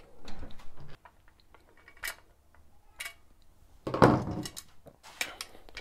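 Sheet-steel hard-drive mounting tray of a PC case being handled, giving scattered metallic clicks and clinks, with a louder clank about four seconds in.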